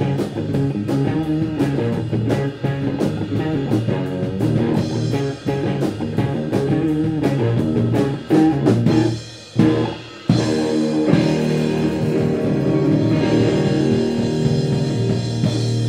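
Rock band playing an instrumental passage on electric guitar, bass and drum kit with a steady beat. The beat breaks off briefly about nine and a half seconds in, and the music goes on with held guitar chords.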